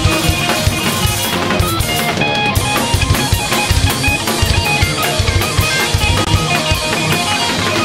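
Rock band playing live: a fast drum kit beat with bass drum and cymbals under distorted electric guitar, an instrumental passage with no vocals.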